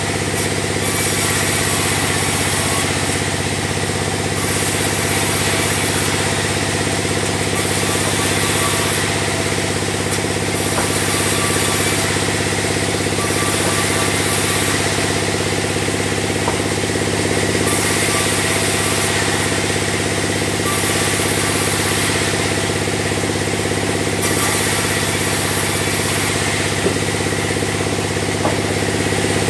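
Large log bandsaw running steadily with a constant machine drone while sawing logs into square beams. A high hiss comes and goes every second or two over the drone.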